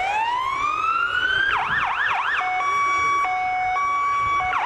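Electronic siren on a parade fire engine cycling through its tones. First a rising wail, then about three quick yelps, then a steady two-tone hi-lo alternation; a new sweep starts near the end.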